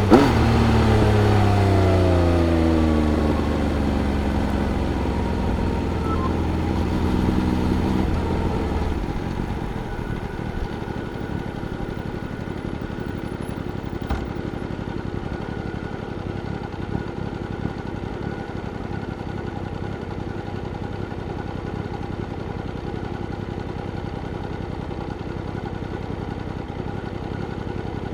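Triumph Speed Triple RS inline three-cylinder engine with revs dropping off as the bike slows. It holds a lower steady pitch for several seconds, then about nine seconds in settles into a quieter, even idle.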